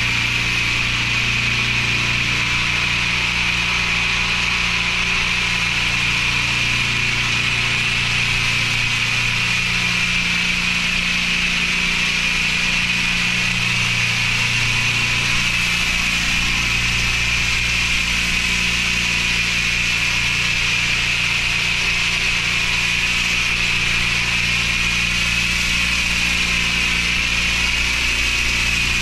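Petrol-engined pressure washer running steadily at turned-down pressure, with a constant hiss from the lance as treatment solution is sprayed onto the paving.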